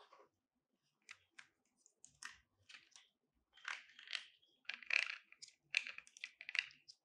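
Hands fiddling with a small black mounting bracket for a ring light, making a run of light clicks and rattles. They are sparse at first and come thicker and louder over the last three seconds.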